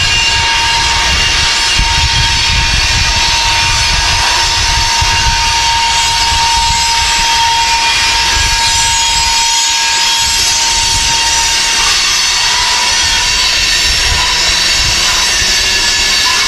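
Freight cars of a long manifest train rolling slowly past on the rails, with a low steady rumble and a steady high wheel squeal that fades about ten seconds in.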